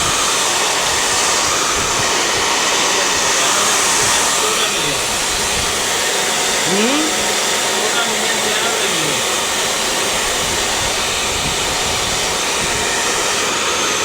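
Handheld hair dryer running steadily, an even loud rush of air.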